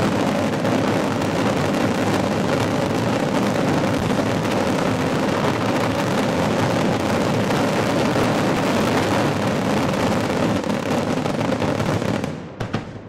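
Daytime fireworks barrage: a loud, unbroken rattle of rapid bangs and crackling that cuts off abruptly near the end, leaving a few separate bangs.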